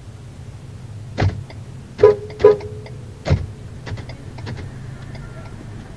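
A car door opening and shutting as someone climbs in: a knock, two short ringing chime tones about half a second apart, then the door closing with a sharp thump, followed by a few light ticks. A steady low hum from the vehicle runs underneath.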